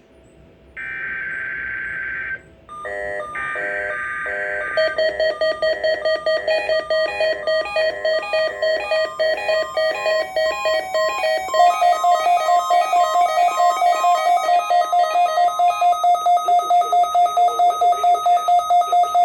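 NOAA Weather Radio SAME header data bursts, harsh buzzy screeches with short gaps between them, open the required weekly test. From about five seconds in, a loud electronic warning alarm pulses about three to four times a second and steps up a little in pitch about halfway through: the weather alert receiver's alarm set off by the test.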